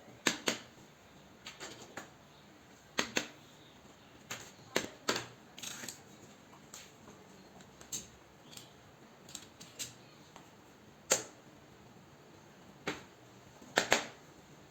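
Irregular sharp clicks and taps of small hard objects being handled, about one a second with uneven gaps; the loudest come about eleven seconds in and as a quick double near the end.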